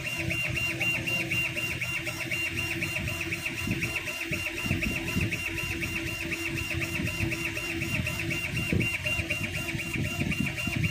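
CO2 laser cutting machine engraving: the motors drive the laser head back and forth along the gantry with a steady mechanical running sound and a high tone pulsing about four times a second.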